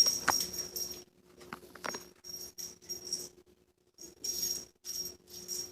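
Small bell on a cat toy jingling in short irregular shakes as the kitten plays with it, with a brief pause past the middle.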